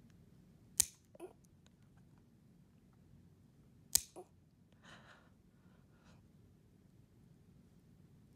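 Safari dog nail clipper snipping through a dog's nail: sharp snaps a few seconds apart, two in the middle and a third at the very end, each followed by a small softer click as the blades reopen.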